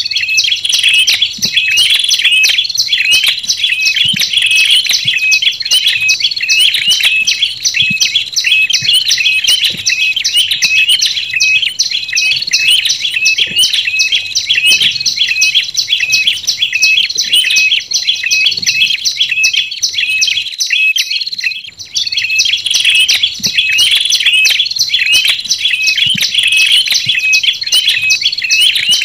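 Tailorbird lure recording mixing the calls of prenjak lumut and red-headed prenjak (ashy tailorbird): fast, high chirping notes repeated several times a second without pause, with a brief break about 21 seconds in.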